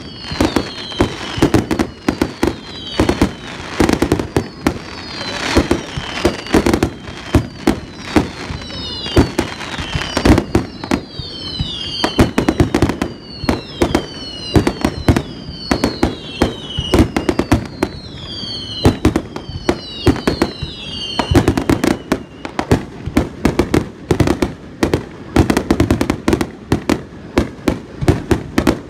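Japanese aerial firework shells bursting in a rapid barrage, many loud bangs a second with crackling. Repeated falling whistles run through it, heard most from about a third of the way in to about three quarters through.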